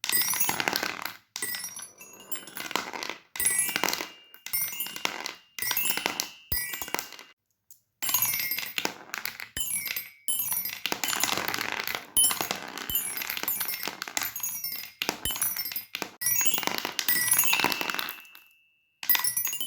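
Hard fidget toys clicking and clinking in short bursts, with a light ringing, repeated take after take with brief silent gaps between them.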